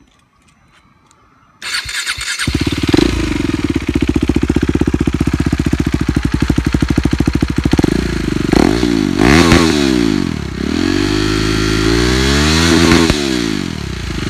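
KTM Duke 390's single-cylinder engine breathing through an aftermarket SC Project slip-on exhaust, starting up under two seconds in and settling into a loud, pulsing idle. From about eight seconds in it is blipped and revved up and down several times, then drops back to idle near the end.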